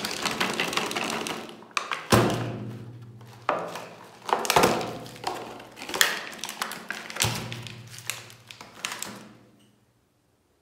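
Music of sharp struck notes that ring on with low tones, a new strike every second or so, fading out about nine and a half seconds in.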